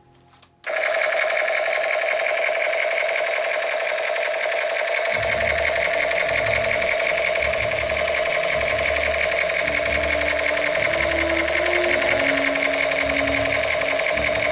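Battery-powered toy machine gun's electronic firing sound effect: a continuous rapid buzzing rattle that switches on suddenly just after the start. About five seconds in, a lower pulsing and a few shifting tones join it.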